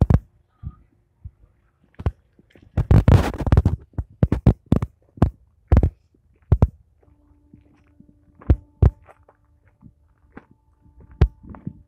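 Footsteps crunching on railway track ballast stones, irregular and uneven, with a denser scrunch of gravel about three seconds in. A faint steady hum comes in about halfway through.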